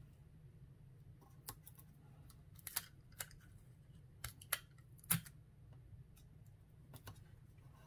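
Clear sticky tape being pulled from a desktop tape dispenser and torn off, with handling of a crinkly plastic pouch: a few short, scattered rips and snaps, the sharpest about five seconds in.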